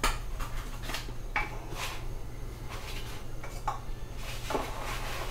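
Handling noise as a wristwatch on a leather strap is lifted out of a foam-lined wooden box: scattered light clicks, knocks and small clinks, over a low steady hum.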